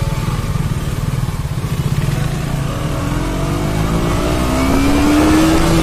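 KTM Duke motorcycle's single-cylinder engine running with a low pulsing beat, then accelerating away, its pitch rising over the last few seconds.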